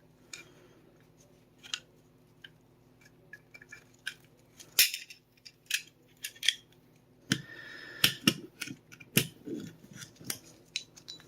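Small clicks and scrapes of a Sig Sauer P365 magazine's follower and spring being worked back into the magazine body by hand. One sharp click comes about five seconds in, and a quick run of clicks and scraping comes near the end.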